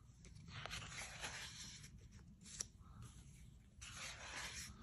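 Faint rustling and sliding of paper pages as a large hardcover book is leafed through, with a soft tick about halfway through.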